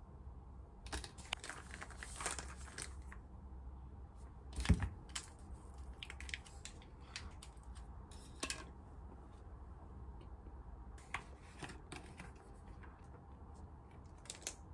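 A plastic stick packet crinkling and being torn open, in scattered rustles and clicks. There is a low thump about five seconds in as a plastic jar is set down on the counter, and clicks near the end as its cap is worked open.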